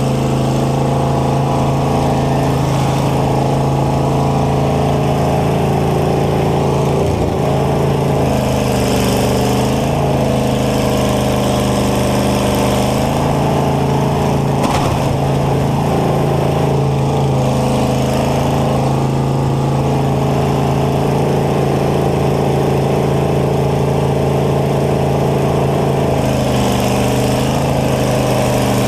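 Combine harvester's engine running loud and steady, heard from inside the cab. Its pitch dips and rises several times, and there is a single sharp knock about halfway through.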